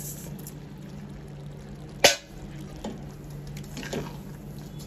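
Granulated sugar poured from a bowl into a kadhai onto thick walnut halwa, a soft pouring hiss. About two seconds in comes one sharp knock, followed by a couple of lighter taps.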